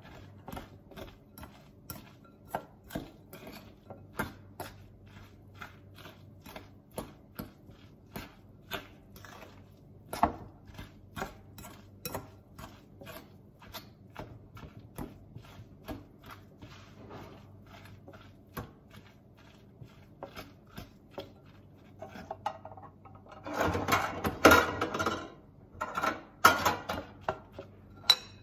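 A metal fork tapping and scraping against a glass bowl while flaking canned tuna, about two taps a second. Near the end there is a louder clatter of handling.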